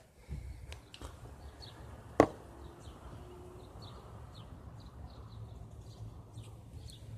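A sharp knock about two seconds in, after a few lighter clicks, over a steady low rumble, with faint short bird chirps outside repeating throughout.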